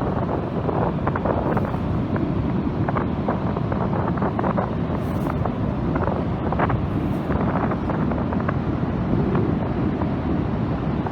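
Steady wind blowing across the microphone, with short crackles, over the rush of ocean surf on the beach.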